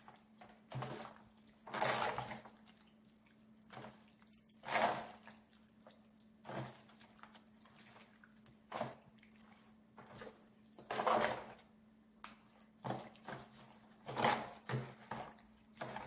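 Hands squishing raw chicken pieces through a wet yogurt-and-oil marinade in an aluminium foil tray, in uneven wet squelches every second or two.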